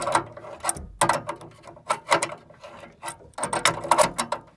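Metal wrench working a fitting: short, irregular runs of metal clicks and scrapes, about four bursts.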